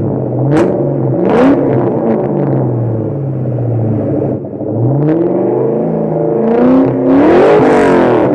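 2003 Ford Mustang Mach 1's 4.6-litre V8 through factory manifolds, an X-pipe and Pypes M-80 mufflers, idling and being revved: a couple of short blips early, another about five seconds in, and the biggest, longest rev near the end.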